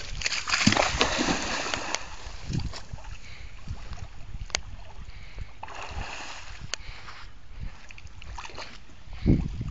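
Water splashing as a German shepherd plunges and paddles in the water: a long splash over the first two seconds and another about six seconds in.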